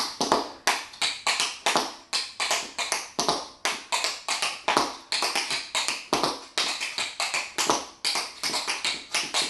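Tap shoes striking a concrete garage floor in quick, uneven clusters of sharp taps, several a second, as she dances.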